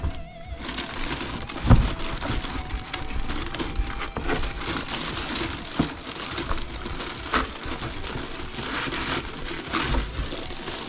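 Packaging crinkling and crackling as it is pulled apart and handled during the unboxing, with a few knocks along the way.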